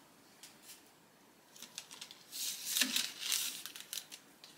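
Parchment paper crinkling and scraping as a piece of baked sheet pancake is cut and lifted off it, with scattered small clicks. The crinkling grows loudest in a stretch past the middle.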